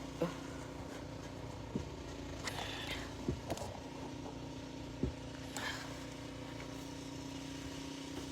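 A snow shovel knocking and scraping now and then, a handful of short strokes, over a steady hum.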